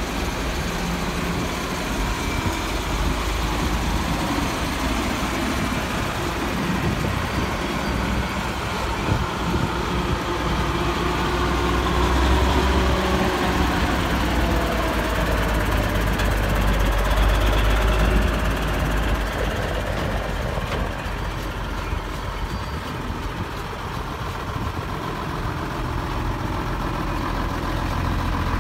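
Vintage lorries and fire engines driving slowly past one after another, their heavy engines running at low speed. The engine note swells and shifts in pitch about halfway through as an articulated tipper lorry passes close, then eases.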